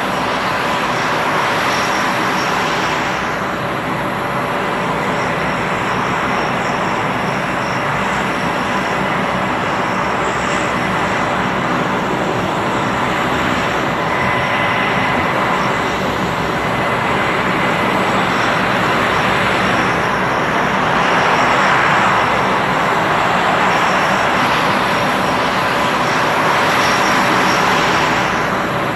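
A-10 Thunderbolt II jets taxiing, their two General Electric TF34 turbofan engines running with a steady high whine over a continuous rush of jet noise that swells a few times as aircraft pass.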